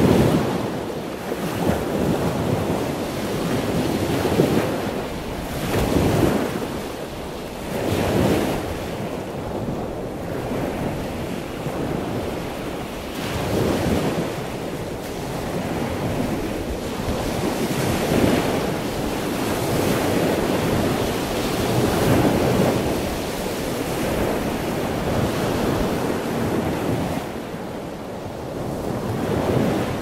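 Ocean surf: waves breaking and washing in a steady rush that swells and eases every few seconds, with wind noise on the microphone.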